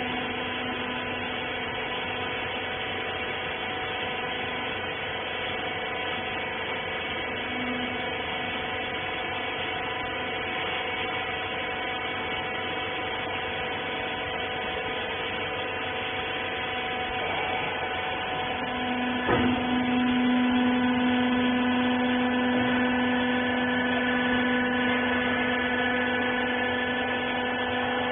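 Cotton-wiper baling machine's motor running with a steady, multi-tone hum. About 19 seconds in there is a click, and the hum grows louder and stronger from then on, as the machine's load changes.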